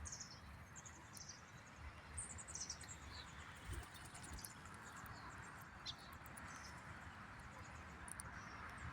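Birds chirping faintly: many short, high calls at irregular intervals over a faint low rumble.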